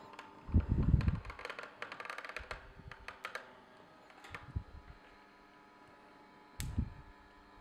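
A few knocks and a run of light clicks as a plate is turned on the countertop, over the faint steady hum of a Sana EUJ-707 slow auger juicer extruding pasta dough through its noodle nozzle.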